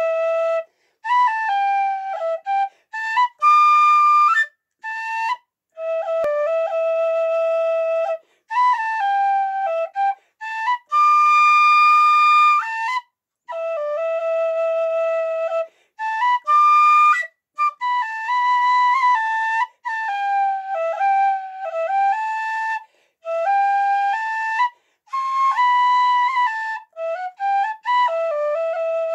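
A Weston Blacksmith whistle in D played solo: a melody of stepping notes in short phrases, broken by brief breath pauses, with one long held high note about halfway through.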